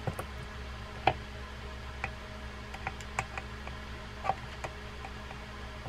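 Small screwdriver working the tiny tie-down plate screws over the anti-reverse dog of an open Penn Spinfisher 4400SS spinning reel: light, scattered metal ticks about a second apart, over a steady low hum.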